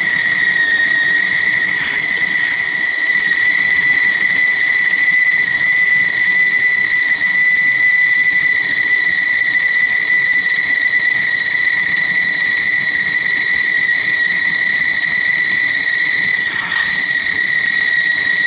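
CNC milling machine running with a steady high-pitched whine and overtones over a noisy bed of machine sound, with a brief dip in the sound near the end.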